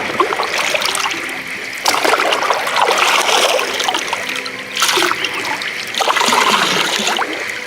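Water splashing and trickling in uneven surges as a water-filter container is dipped and filled in a river. The river's steady flow runs underneath.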